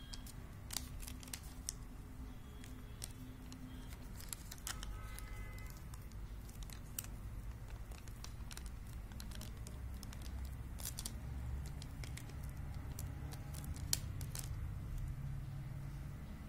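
Glue stick rubbed over a paper cutout and the paper handled, with scattered light clicks and taps, over a low steady background hum.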